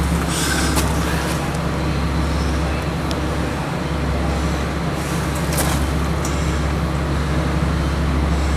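Steady low drone of a motor vehicle engine with road-traffic noise, and a couple of brief hissy rustles.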